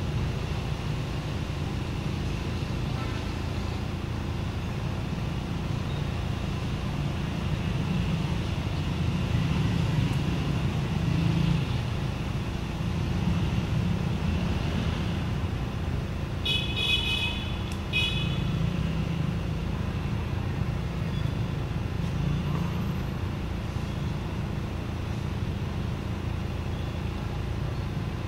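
Steady low rumble of motor traffic, with a short high-pitched beep in two parts about 17 seconds in.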